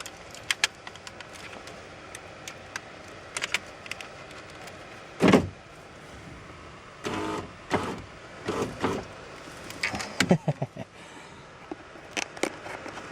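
A pickup's power window motor run in several short bursts, each about half a second, moving the glass up in the door to lift a dropped nut off the window track, with small clicks and rattles of parts inside the open door.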